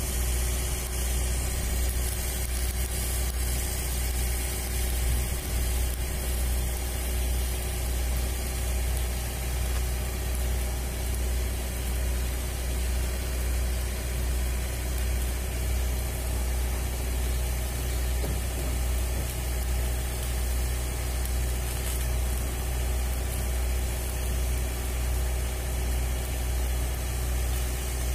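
A large engine running steadily at idle, with a deep hum that swells and fades in an even rhythm about once a second.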